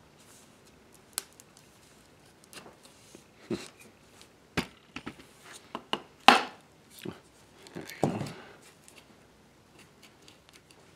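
Scattered wooden knocks and clicks as mahogany chair parts are handled and fitted, a turned stretcher worked at its joint with the leg. The loudest knock comes about six seconds in, with a short cluster of them about two seconds later.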